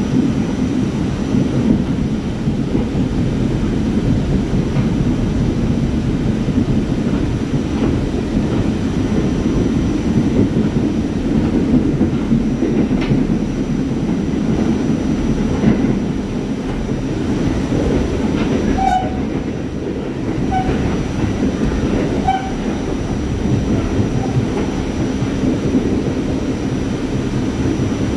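R44 subway train running along the track: a steady rumble of wheels on rail with some clicking over the rail joints, and a few short high squeaks a little past the middle.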